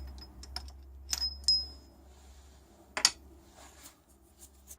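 Small steel hand tools, a tap, tap wrench and tap follower, clinking as they are picked up and handled: a few light clicks, two short high metallic rings a little after a second in, and a sharper knock near three seconds, over a steady low hum.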